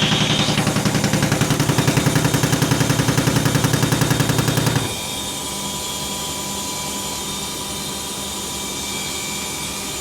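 Washing machines on the final spin: a fast, even pulsing that repeats several times a second, which drops suddenly about halfway to a quieter, steadier running sound with a faint high whine.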